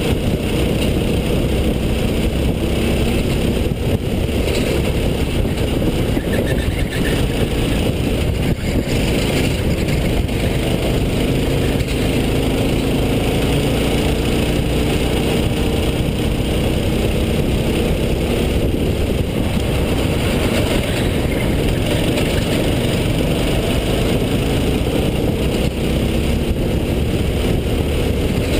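Racing go-kart engine heard up close from the kart's onboard camera on a lap at speed, its pitch sliding up and down several times as the kart accelerates and slows through the corners, over a steady low rumble.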